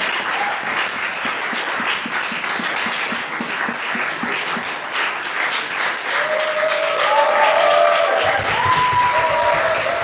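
Audience applauding, a dense patter of many hands clapping, with voices calling out over it in the second half.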